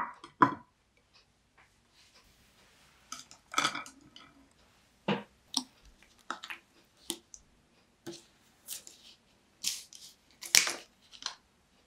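Kitchen utensils and dishes being handled: a scattered run of light clicks and clatters, with a sharper knock at the start, another about half a second in, and another near the end.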